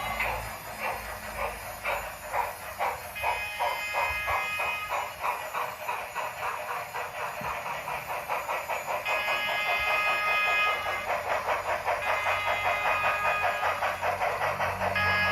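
Steam-locomotive exhaust chuffing sound effect from an HO-scale Union Pacific Big Boy model, a fast, even beat of hissing chuffs. Steady high tones come and go over the beat at times.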